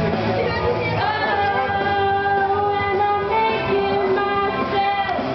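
Woman singing into a handheld microphone over a rock backing track, holding long, steady notes from about a second in.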